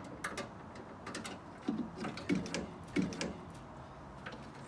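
Wiring and metal parts being pulled and pried out of a microwave oven's steel chassis by gloved hands: a run of sharp clicks and rattles, with three heavier scraping knocks in the middle.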